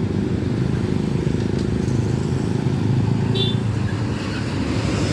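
Passing road traffic with a steady low engine rumble from a large diesel bus going by. A brief high chirp about three and a half seconds in.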